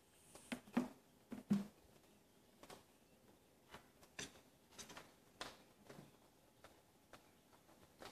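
Kittens scrambling about a carpeted cat tree: scattered faint taps and scratches of paws and claws, with two louder soft thumps about a second and a second and a half in.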